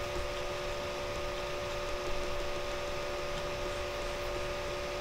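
Steady background hiss of the recording with a constant hum of a few steady tones underneath. It is the noise floor of the microphone and recording setup, heard during a pause in the speech.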